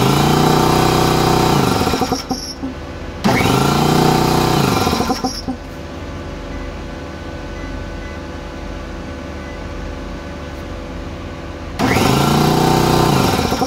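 Husky air compressor's electric motor starting and stopping three times, each run about two seconds, falling in pitch as it winds down each time. It is powered through a 12 V 4000 W pure sine wave inverter that takes the start surge without trouble. A steady hum runs underneath.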